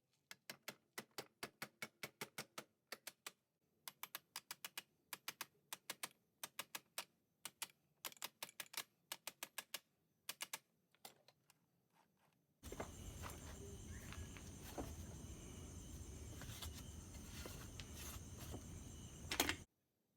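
Rapid light mechanical clicking in bursts, about four or five clicks a second, from the engine's gearbox parts being worked by hand while test-fitting. Then a steady hissing noise for about seven seconds that ends with a sharp knock and stops suddenly.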